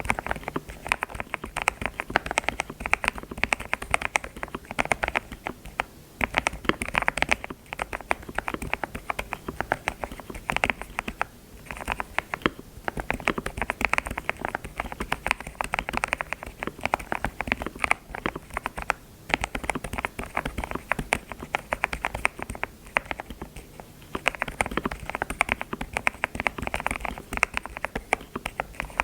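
Computer keyboard being typed on quickly, a dense run of key clicks broken by a few short pauses.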